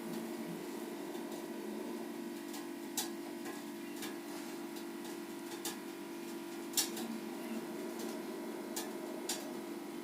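Washing machine running an empty drum-cleaning wash: a steady motor hum with a few sharp, irregular clicks scattered through it.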